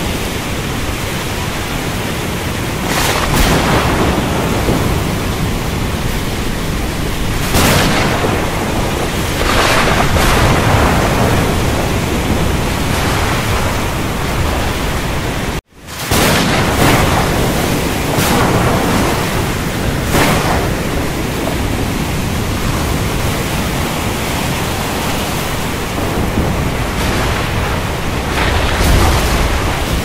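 Steady hiss of heavy rain, with several short louder swells of thunder spread through it and a deeper rumble near the end. About halfway the sound cuts out for an instant and fades back in, a loop splice in the recording.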